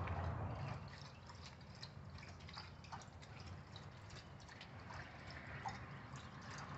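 Dog lapping water at a garden hose: a run of quick, faint, wet licks.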